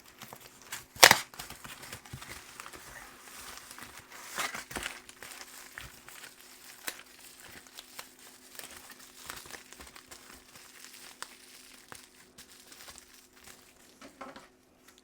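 Packing material crinkling and rustling as items are handled and unwrapped. A sharp, loud crackle about a second in is the loudest moment, another comes at about four and a half seconds, then fainter intermittent crinkles.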